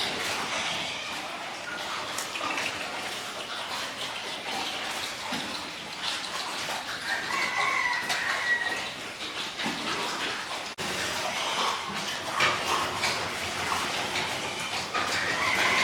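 A rooster crowing, one long call about halfway through and another starting near the end, over a steady rushing background with scattered clicks.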